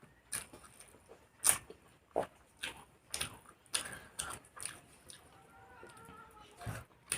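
Close-up eating sounds: wet smacks and clicks of chewing and lip-smacking at irregular intervals, about one to two a second.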